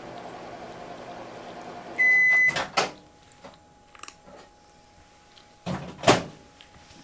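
Microwave oven running with a steady hum that stops about two seconds in with one loud beep half a second long, followed by a few clicks and a sharper clack about six seconds in.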